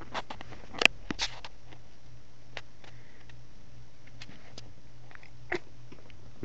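Domestic cat biting and chewing a fly close to the microphone: a few short sharp clicks and crunches, the loudest about a second in, then a handful of faint scattered clicks.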